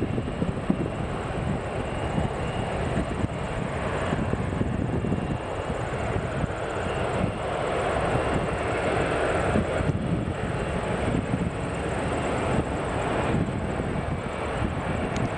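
Twin GE CF34 turbofans of an Embraer E190 at takeoff power as the jet climbs out after departure, a steady deep jet rumble.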